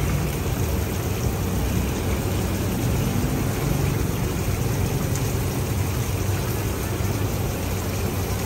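Steady low mechanical hum and rumble, engine-like, with a constant hiss above it.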